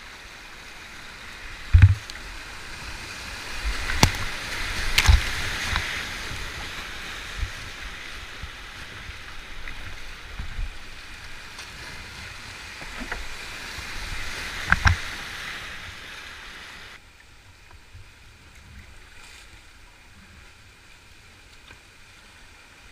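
Whitewater rapids rushing around a kayak, broken by several sharp knocks, the loudest about two seconds in and others near 4, 5 and 15 seconds. About 17 seconds in, the rushing drops suddenly to a quieter, gentler flow of calm river water.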